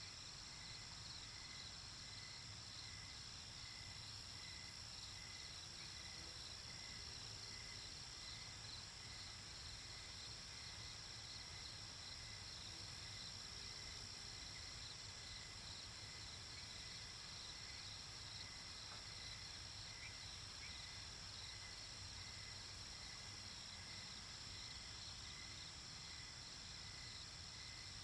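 A faint, steady chorus of crickets chirping, with a pulsed call repeating about twice a second, over an even hiss and a low rumble.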